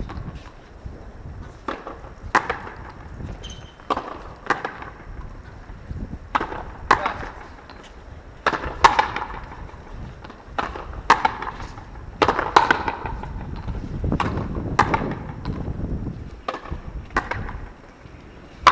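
Frontenis rally: the rubber ball struck back and forth with rackets and smacking against the frontón wall, sharp hits coming about once a second.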